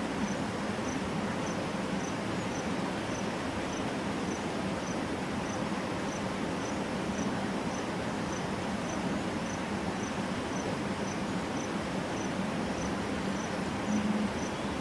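Outdoor ambience over a steady hiss, with an insect chirping at an even pace, about two or three chirps a second. A short low sound rises briefly near the end.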